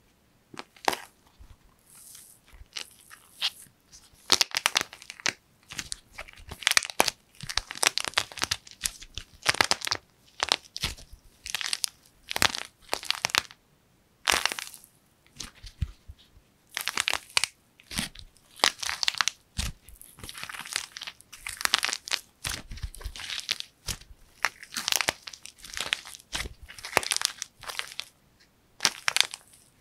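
Dried plaster clay cracking and crunching as it is squeezed and broken apart by hand: irregular bursts of crisp crackles as the hard coloured shell splits and the crumbly inside crushes, with a short pause about halfway through.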